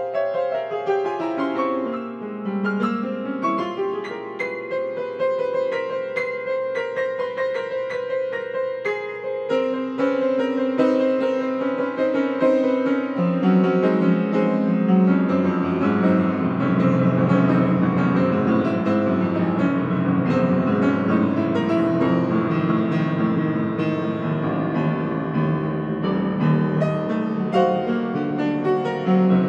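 Grand piano played solo in free improvisation. It opens with a line falling and then rising in the middle register, then thickens into a fuller, louder texture as low bass notes come in about halfway through.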